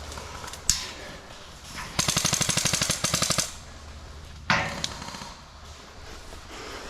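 An airsoft gun firing a fully automatic burst of rapid, evenly spaced shots lasting about a second and a half, about two seconds in. A single sharp snap comes about a second before it, and another about a second after it.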